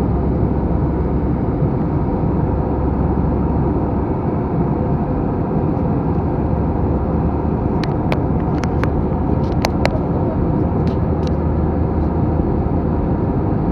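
Steady rumble of an Airbus A321 airliner heard from inside the cabin: engine and airflow noise. About eight seconds in, a few short, light clicks come over it.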